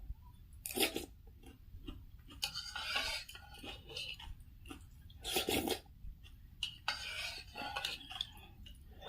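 Eating from a bowl of pork noodle soup: utensils clinking and scraping against the bowl, with chewing and several short, louder bursts.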